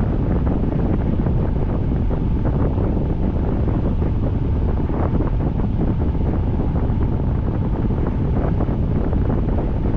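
Steady noise of a rainstorm: wind buffeting the microphone, with a fine patter of rain over it.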